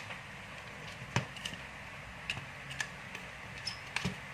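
Scattered light clicks and knocks from handling a plastic-bodied contactor and the wire ends being fitted to its coil terminals, the loudest about a second in and two close together near the end.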